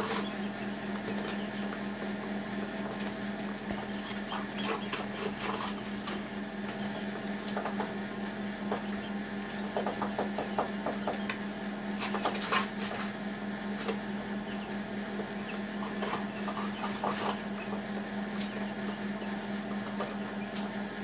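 Steady low hum of an egg incubator's fan or motor, with irregular light clicks and scratches over it, in small clusters about ten and twelve seconds in.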